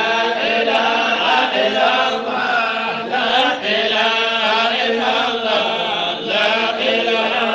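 Continuous melodic chanting of a kassida, an Islamic devotional poem, the voice line rising and falling without a break.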